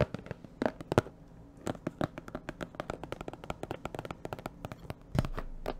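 Packaging around a camera lens crinkling and crackling as it is handled and unwrapped: a rapid, irregular run of small crackles and clicks, a little louder about five seconds in.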